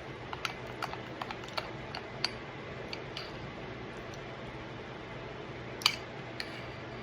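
A spoon clinking against a bowl: a run of light clicks in the first two seconds or so, then one sharper clink near six seconds, over a steady low hum.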